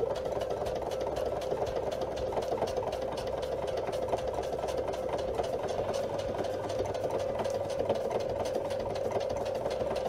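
Domestic electric sewing machine running steadily, stitching through sew-on Velcro tape and fabric with a rapid, even run of needle strokes.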